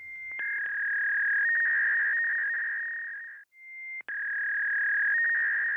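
Electronic tone from broadcast PA equipment: two long, steady, high-pitched tones, each about three and a half seconds, separated by a brief break, each starting with a click.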